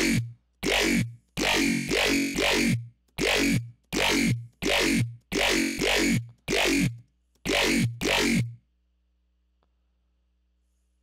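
Synthesized dubstep bass one-shot from Xfer Serum, triggered over and over: about a dozen short hits, each with a pitch that drops in the low end. They stop with about two and a half seconds of silence left.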